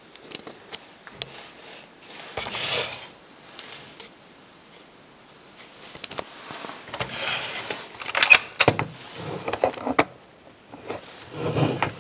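Handling of a plastic Polaroid 600 instant camera on a wooden table: rubbing and scraping with scattered clicks and knocks. A sharp click about two-thirds of the way through is the loudest.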